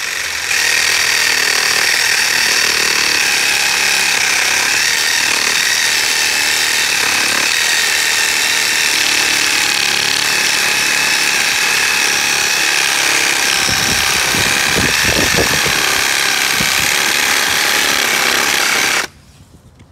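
DINSHARE cordless reciprocating saw with a wood blade running steadily as it cuts through a 1-inch wood stem, its buzz holding level throughout the cut. A few knocks come about three-quarters through as the hand-held stem wobbles against the blade, and the saw cuts off suddenly near the end.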